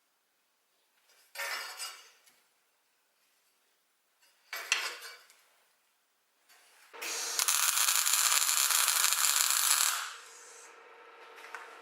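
Electric arc welding on steel strip: two short tack welds, then a weld run of about three seconds, the loudest part. After it a quieter steady noise with a low hum carries on.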